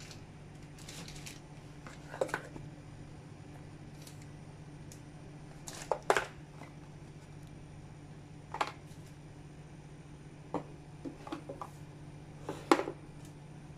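Plastic food containers and packaging handled and set down on a kitchen countertop: a scattering of light clicks and knocks, the loudest about six seconds in and near the end, over a steady low hum.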